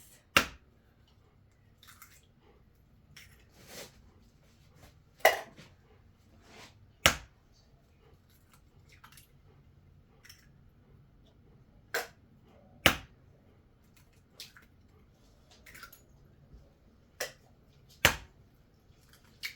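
Eggs being cracked against the rim of a mixing bowl: a series of sharp, separate taps and clicks, about a dozen, spaced a second or more apart.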